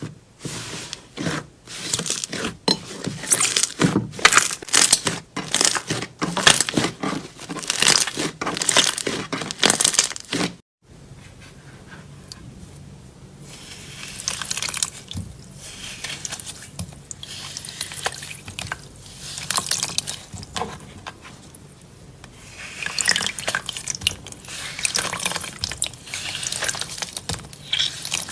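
Slime being squished and pressed by hand: wet, sticky clicks and crackles, dense for the first ten seconds, then after a brief break a softer squelching that thickens again near the end.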